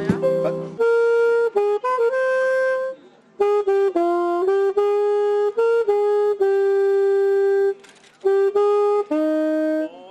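Saxophone playing a slow melody of held notes in three phrases, with two short breaks.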